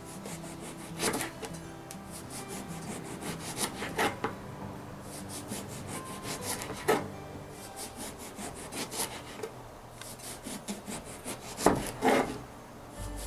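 Kitchen knife slicing an aubergine into thin slices on a cutting board, in runs of quick sawing strokes with a couple of louder knocks of the blade on the board near the end.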